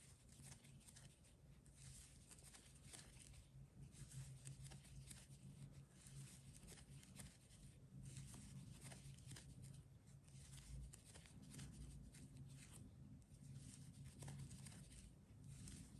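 Near silence: faint, irregular rustling and scratching of a crochet hook working yarn through stitches, over a steady low hum.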